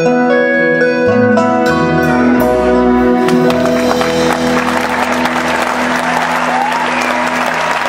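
A live band's closing chord held out, with a few sharp drum and cymbal hits in the first couple of seconds. Audience applause swells in underneath from about three seconds in as the chord sustains.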